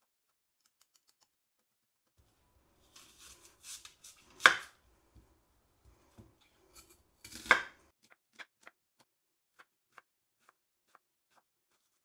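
Chef's knife cutting a red onion on a bamboo cutting board. About two seconds in there is some light handling noise, then two loud knife strikes on the board about three seconds apart, then a run of lighter, evenly spaced taps as the onion is diced.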